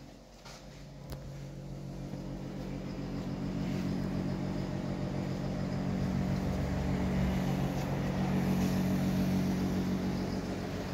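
Steady low mechanical hum made of several held low tones over a noise, growing louder over the first few seconds and then holding.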